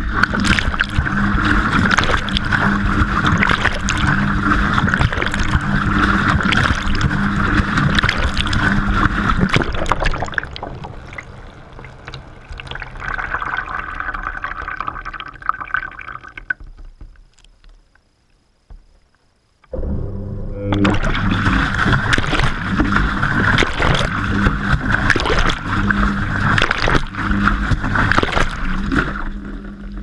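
Front-loading washing machine drum turning with water in it, heard from inside the drum: water sloshing and splashing over a steady motor hum, with many small knocks. Past the middle it stops for about three seconds, then starts again: the drum pausing and restarting in its wash cycle.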